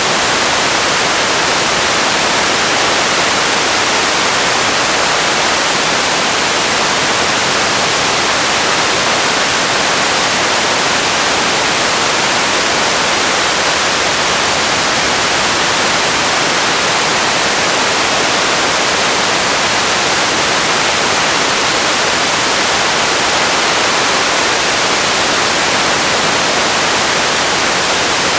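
Steady, loud static-like hiss, strongest in the highs with little bass, unchanging throughout: an ambience noise bed.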